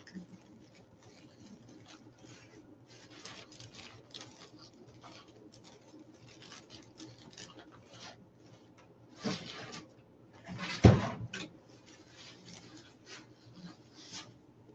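Deco mesh and burlap rustling and crinkling in short handfuls as they are fluffed on a wreath frame, with a louder rustle about nine seconds in and a sharp thump about eleven seconds in.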